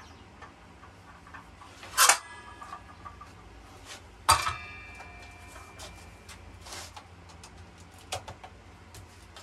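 Metal parts clanking while a circular saw is being adjusted: two sharp metallic clanks a little over two seconds apart, each ringing briefly, the second ringing longer, amid small ticks of handling.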